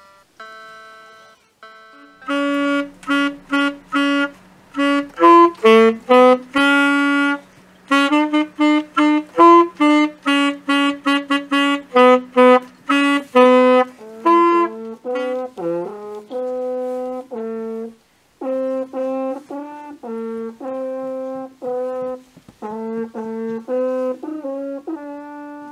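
Children playing an instrumental Christmas tune: a few soft electronic keyboard notes, then from about two seconds in a saxophone and a French horn carry the melody in short, separated notes, with a brief pause about two-thirds of the way through.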